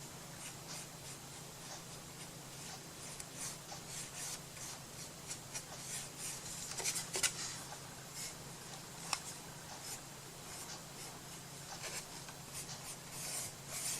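Irregular short scratching and rubbing strokes of a tool working over craft paper, over a steady low hum.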